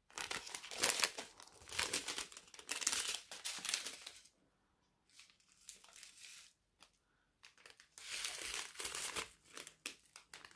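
Small clear plastic ziplock bags of diamond-painting drills crinkling as they are handled, in bursts, quieter for a few seconds in the middle.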